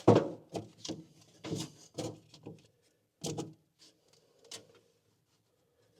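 Light knocks and clicks of a small plate being handled and shifted against a Willys MB Jeep's bulkhead to line up its screw holes: a quick run of knocks in the first two and a half seconds, one sharper knock a little after three seconds, and a few faint taps after it.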